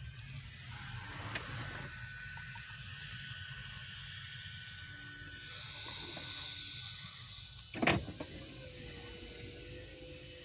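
A car's power window motor runs with a whir and stops with a sharp thump just under eight seconds in. A low rumble from the passing freight train sits underneath.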